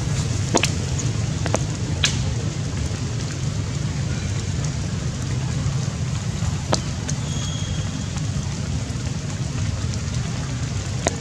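Steady rain falling, with a low rumble underneath and a few sharp drips or clicks.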